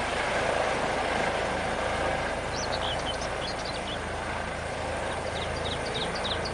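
Steady rushing noise, with a small bird chirping repeatedly in short, falling notes from about two and a half seconds in.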